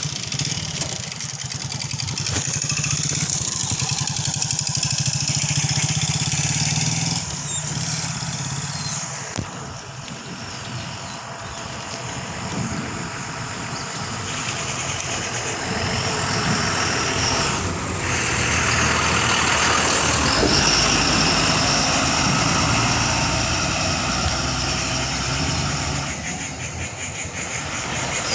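Motor vehicle engines and road traffic running continuously, with a low engine hum, growing louder about six seconds in and again around twenty seconds in.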